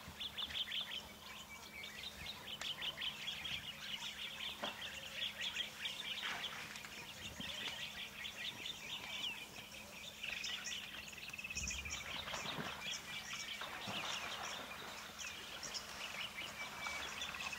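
Wild birds chirping and chattering in a dense, rapid chorus. A whistled call slides down in pitch a little past the middle and again at the end.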